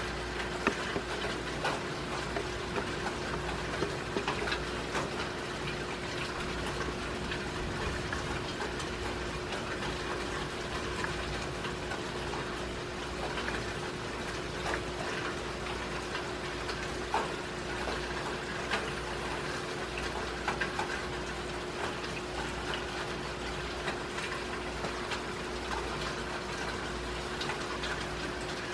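Rain falling steadily, with many scattered sharp drop impacts through it and a steady hum underneath.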